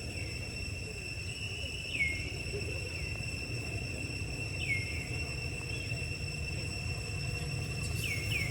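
Insects, such as cicadas or crickets, droning on one steady high pitch. Short chirps that fall in pitch come four or five times, two of them close together near the end. There is a low rumble underneath.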